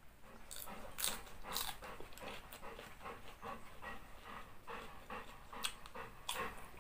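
Crunching and chewing of green papaya salad eaten by hand, in irregular short strokes, with a pet dog panting nearby.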